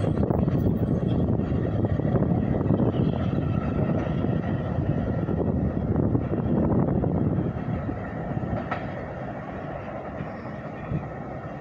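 New York City subway train pulling away along the tracks, a steady rumble of wheels on rail that drops off after about seven or eight seconds as it recedes.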